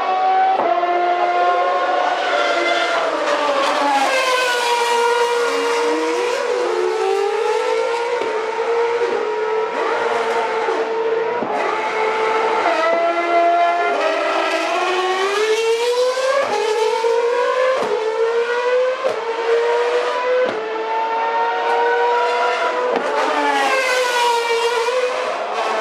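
Formula One cars' 2.4-litre V8 engines running at very high revs as several cars pass in close succession. Their notes overlap continuously and repeatedly fall and rise with gear changes and speed.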